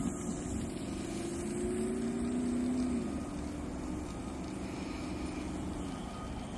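A motor vehicle engine running, its pitch rising slowly over a couple of seconds and then dropping about three seconds in.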